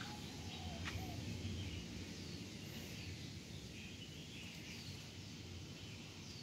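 Faint outdoor background: a steady low hum with a few short, high bird chirps scattered through it and a couple of faint clicks in the first second.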